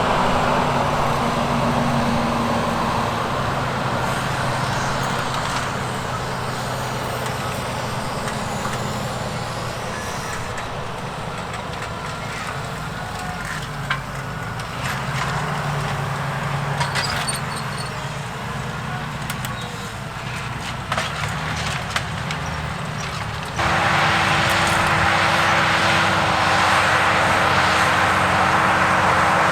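Fendt 936 tractor's six-cylinder diesel engine running steadily under load while pulling an eight-furrow plough, with a few sharp clicks in the middle. About three-quarters of the way through, the sound jumps abruptly louder and a steady higher engine tone takes over.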